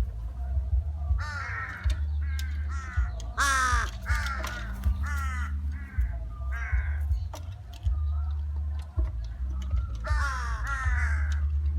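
Crows cawing: harsh calls in quick runs over the first several seconds, then a pause, then another run of caws near the end, over a steady low rumble.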